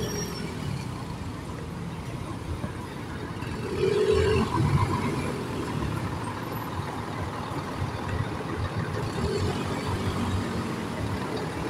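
Traffic noise from a motor scooter riding slowly through congested traffic: the scooter's small engine and the surrounding bus and car engines make a steady rumble, with a louder surge about four seconds in.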